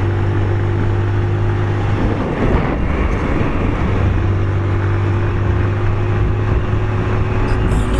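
Motorcycle engine running at cruising speed with wind rushing over the microphone. The engine's steady hum drops away about two seconds in and comes back about four seconds in.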